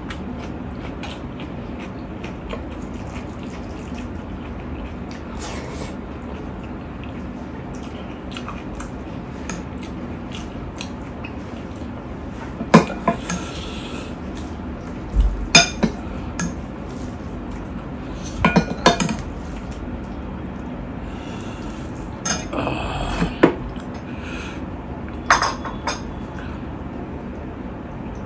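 A metal spoon clinks against a glass bowl and a steel plate as dal is ladled onto rice: about a dozen sharp clinks in clusters through the second half, with the wet sound of the dal pouring.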